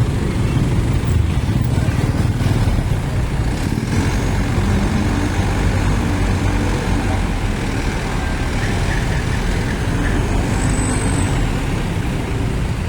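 Bus engines and road traffic running, a steady low rumble.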